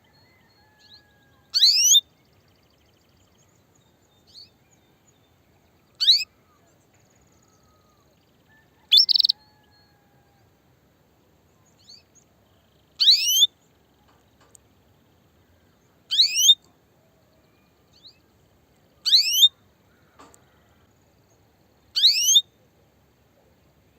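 Female canary giving her mating call: a short, sharp chirp that sweeps quickly upward in pitch, repeated seven times at about one every three seconds, with a few faint chirps between. It is the call of a hen ready to breed, calling males.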